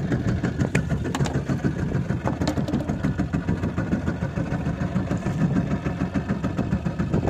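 Fishing boat's engine idling steadily, a fast even low pulsing, with a few light clicks in the first few seconds.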